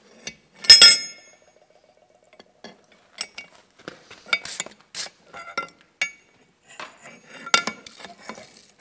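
Steel tools against an anvil: one loud, sharp metallic clang that rings on briefly about a second in, followed by a string of lighter clinks and taps of tongs and tools on the steel.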